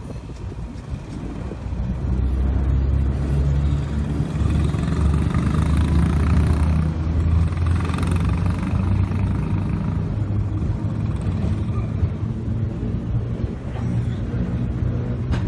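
Heritage electric tram running along its rails: a steady low-pitched hum and rumble that grows louder about two seconds in, then holds.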